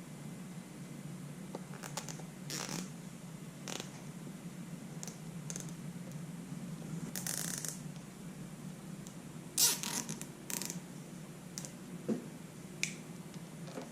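Handwork on a motorcycle fork bellows with cable ties: short scrapes and rustles and a few sharp clicks, the loudest about ten seconds in. A low steady hum runs underneath.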